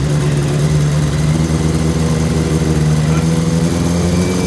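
Suzuki superbike's four-cylinder engine running steadily, its pitch creeping up slightly.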